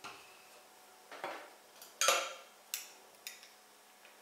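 A metal spoon clinking against a small glass bowl while stirring yeast and sugar into water. There are about five separate clinks, and the loudest comes about two seconds in.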